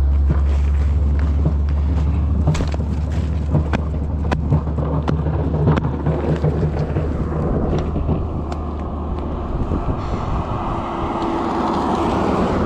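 Mountain bike being ridden through snow, with wind rumbling on the microphone and scattered clicks and rattles from the bike. The rumble eases about halfway through and gives way to a hissing rush near the end.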